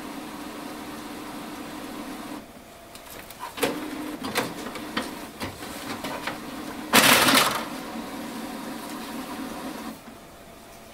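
Canon MAXIFY MB2020 inkjet printer running its first-setup processing after ink cartridge installation: a steady mechanical hum that stops for about a second early on and again near the end. Scattered clicks and a short, loud scrape of plastic tray parts being handled come about seven seconds in.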